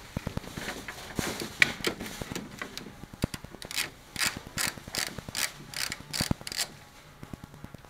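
Ratchet wrench clicking as it works a 10 mm fastener loose. A run of about eight louder ratcheting strokes, roughly two to three a second, comes in the middle, with scattered lighter clicks around it.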